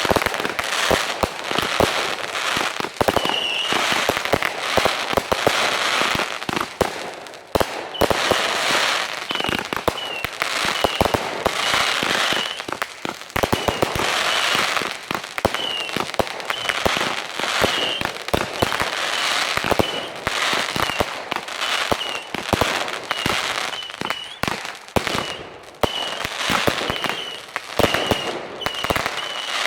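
Fireworks display going off without pause: a dense, irregular run of bangs over continuous crackling.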